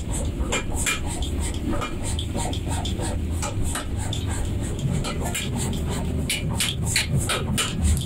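Steady low hum of the electric air blower forcing air into a mud-built forge furnace, with irregular sharp crackles and clicks over it.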